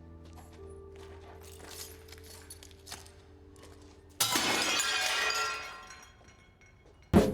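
A low steady hum with faint ticks, then about four seconds in a sudden loud crash of shattering glass that dies away over a second or so.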